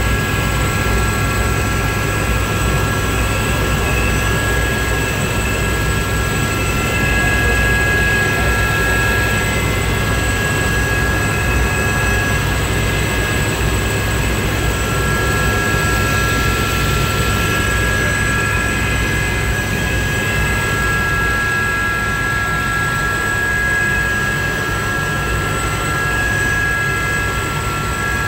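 Aérospatiale Gazelle turboshaft helicopter in steady cruise flight, heard from inside the cabin: a constant low rotor and engine rumble under several unchanging high whining tones.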